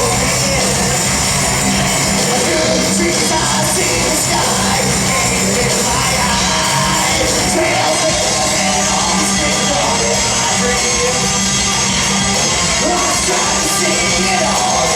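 A live band playing loud and steady, with a singer's vocals over the instruments.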